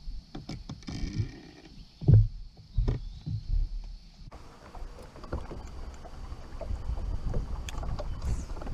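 Knocks and thumps on a fishing boat's deck as an angler shifts in his pedestal seat, the loudest about two seconds in. After an abrupt cut, a steady low wind rumble on the microphone with small ticks.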